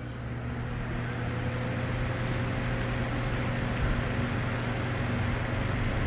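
Lasko 3723 20-inch box fan running: a steady electric-motor hum under the rush of air from the blade, growing louder over the first couple of seconds and then holding even.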